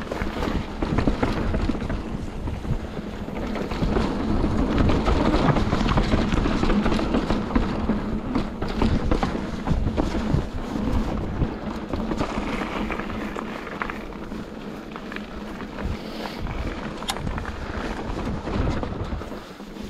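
Mountain bike riding down a rocky, stone-pitched trail: tyres rumbling over the rock and the bike rattling and clattering, with wind buffeting the camera microphone.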